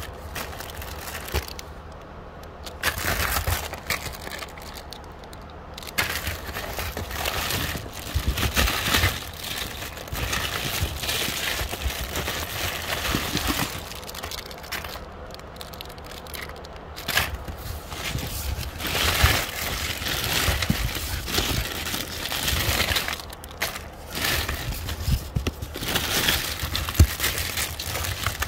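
Packaged fashion jewelry being rummaged through by hand in a cardboard box: plastic bags and paper cards crinkling and rustling, with many short sharp crackles.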